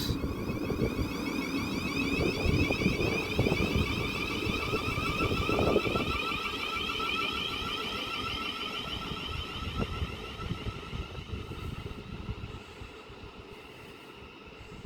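Thameslink Class 700 electric train slowing to a stop at the platform, its traction motor whine falling in pitch and fading over a low rumble of wheels on track.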